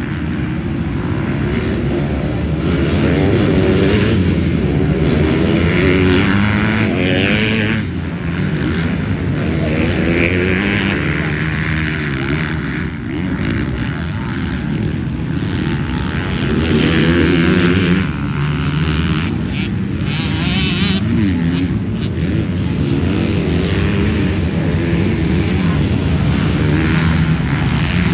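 Several MX2 motocross dirt bikes racing on a dirt track, their engines revving up and dropping back again and again, overlapping as riders come and go through the corners and jumps.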